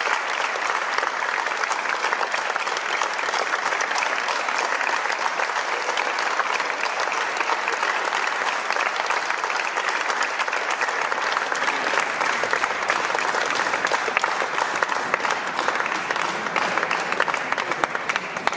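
Audience applauding steadily, a dense, even clapping from many hands.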